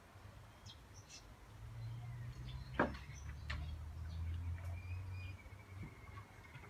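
Faint outdoor bird chirps over a low rumble that swells and fades, with one sharp knock a little under three seconds in and a thin steady whistle near the end.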